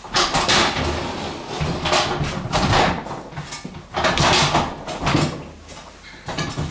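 Several loud bursts of rustling and knocking from a person moving close to the microphone, separated by short gaps.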